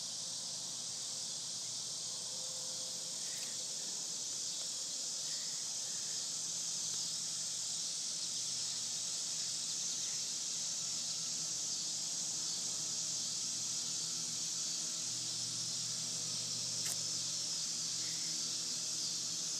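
Steady high-pitched chorus of insects, with a couple of faint clicks.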